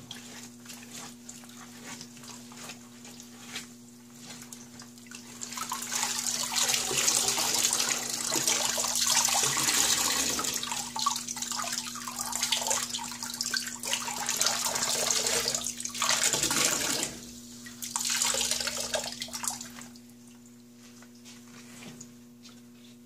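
Water streaming and splashing into a stainless steel sink as a rolled-up mesh bag of wet alpaca fleece is squeezed out by hand. It comes in a long spell from about six seconds in to seventeen, breaks off briefly, then a shorter spell before it dies down near the end, over a steady low hum.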